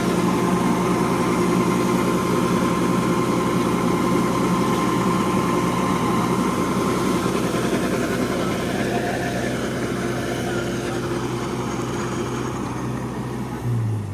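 Diesel engine of farm machinery running steadily at an even speed, easing off a little near the end.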